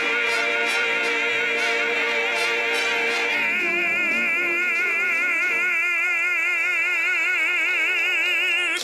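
Military concert band and singers holding a long final chord. A voice sings with a wide vibrato over the sustained band, and the sound cuts off abruptly at the end.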